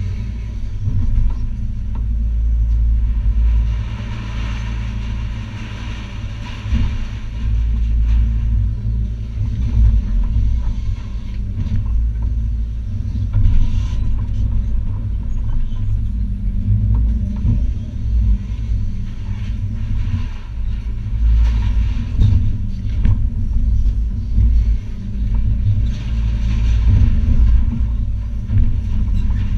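Hitachi ZX280 excavator's diesel engine and hydraulics running, heard from inside the cab, the level swelling and easing as the boom and bucket work. Occasional knocks and scrapes of demolition rubble and sheet metal.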